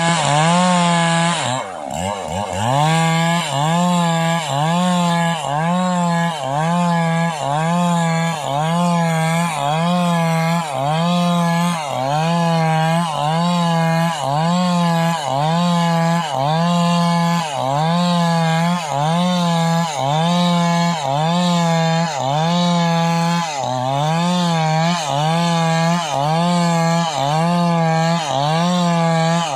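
Stihl MS381 two-stroke chainsaw running at full throttle while ripping a log into boards. Its pitch drops sharply about two seconds in, then recovers, and keeps dipping briefly about once a second as the chain bites into the wood.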